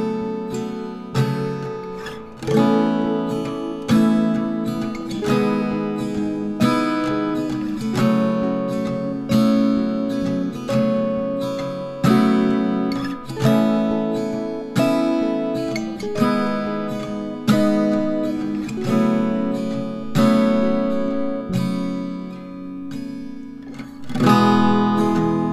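Background music: slow strummed acoustic guitar chords, a little over a second apart, each ringing out before the next.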